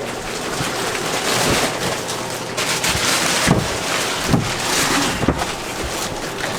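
Rustling and scraping of a mattress being turned and shifted by hand onto a bed frame, with a few soft thuds as it is moved.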